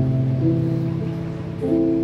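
Instrumental background music: a melody of held notes, each lasting about half a second to a second.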